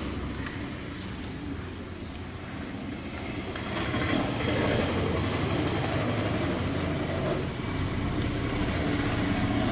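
A motor vehicle engine running steadily, getting louder about four seconds in.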